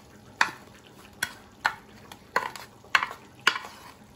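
A metal spoon stirring a dry breadcrumb mixture on a ceramic plate. Each stroke scrapes and ticks against the plate, at an uneven rate of about two strokes a second.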